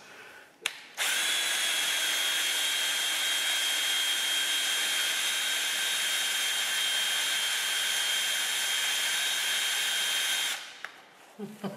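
Cordless drill running at a steady speed for about nine seconds, spinning a wooden stick hard into a wooden board so that it smokes: a friction fire made with a power drill. It is a steady high whine that starts about a second in and cuts off suddenly near the end.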